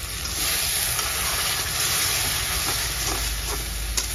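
Masala frying in a kadai, hissing and sizzling hard as a little water hits the hot oil; the hiss swells about half a second in and eases off slowly. A spoon clinks against the kadai near the end.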